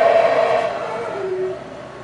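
Howler monkeys howling: a droning call that is loudest at the start and fades away about a second and a half in.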